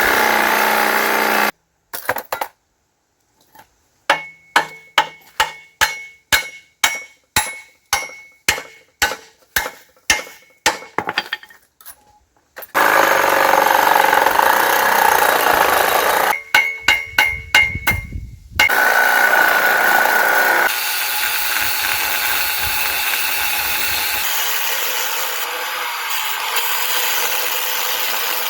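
An angle grinder grinding on the steel of a Ford Super Duty Dana 60 front axle, broken by a hammer striking the metal in a series of sharp ringing blows, about two to three a second for some eight seconds, then a shorter burst of blows. The grinder then runs steadily with a whine through the rest.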